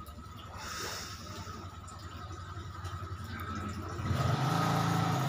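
Steady low rumble of street background. About four seconds in, a vehicle engine draws near and grows much louder, running steadily.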